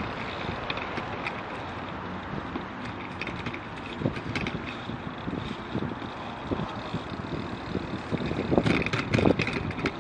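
Bicycle ridden at low speed: wind on the microphone and tyre noise, with scattered rattles and knocks, and a cluster of louder ones near the end.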